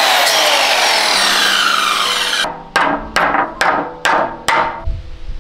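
Electric chopper whirring through chili peppers, its motor pitch falling steadily before it stops about two and a half seconds in. Five sharp knocks follow, about half a second apart.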